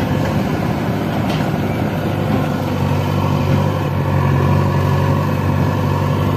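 Heavy diesel engine running steadily at an even speed.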